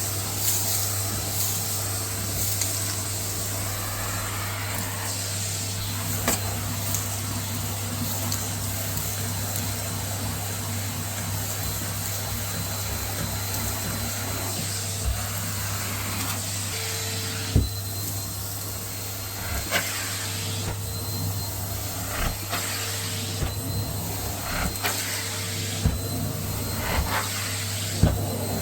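Numatic Hetty tub vacuum cleaner running steadily while sucking up a gritty homemade dirt mix, with sharp crackles and ticks of grit rattling through the tool and hose, the clicks coming more often in the second half.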